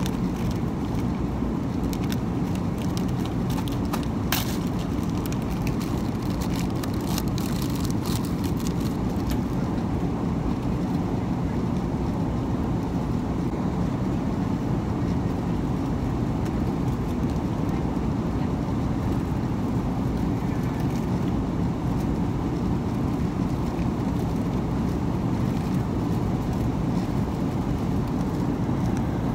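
Steady low rush of jet airliner cabin noise. A paper snack wrapper crinkles and rustles over the first several seconds.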